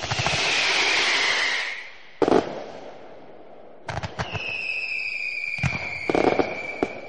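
Fireworks going off: sharp bangs and crackling with a hissing spell, then from about halfway through a long whistle that slides slowly down in pitch while more bangs go off.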